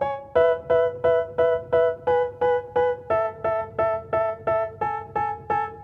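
Instrumental background music: a pitched chord struck again and again, about three times a second, moving to a lower chord about three seconds in.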